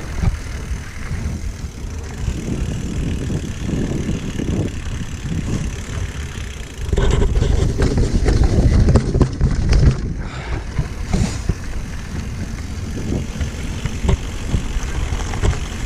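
Mountain bike rolling over a rough trail: a low rumble of wind on the microphone and tyre noise, with scattered clicks and rattles, louder for about three seconds near the middle.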